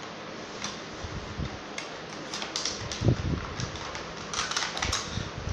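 Hard plastic parts of a toy beauty case clicking and clattering as they are handled, with a dull knock about three seconds in and a quick run of clicks near the end.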